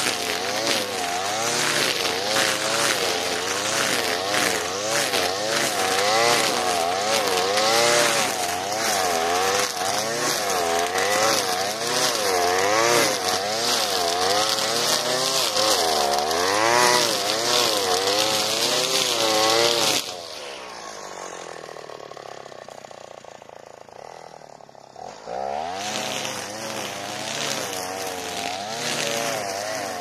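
Alpina Star 55DP petrol brushcutter's two-stroke engine at high revs, its pitch rising and falling as the 3 mm square trimmer line cuts through tall grass with dense ticking. About twenty seconds in the throttle is released and the engine drops to idle, then revs back up about five seconds later.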